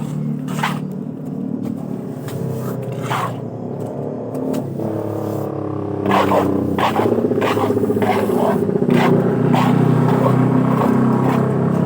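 An engine running steadily, with short scrapes and knocks over it. It gets louder and shifts pitch about halfway through.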